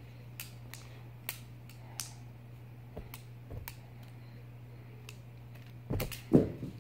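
Butterfly-knife (balisong) pen being flipped open and shut by hand: irregular sharp clicks as its handles knock together, with a couple of louder knocks near the end.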